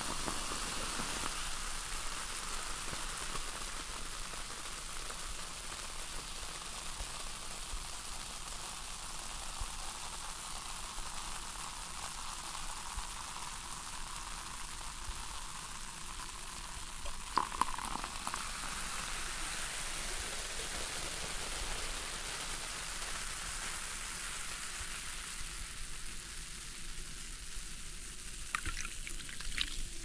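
Freshly poured soda fizzing in a glass: a steady crackling hiss of carbonation bubbles bursting at the surface. A brief louder burst comes a little past halfway, and a few light clicks near the end.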